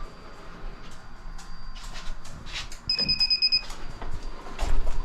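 A few clicks and knocks as a circuit breaker is switched back on, then a single steady electronic beep about three seconds in, lasting under a second. Louder knocks and a low thump follow near the end.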